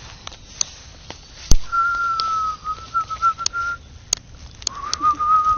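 A person whistling two long, nearly level notes, the first wavering a little near its end, with scattered sharp clicks, one loud click about a second and a half in.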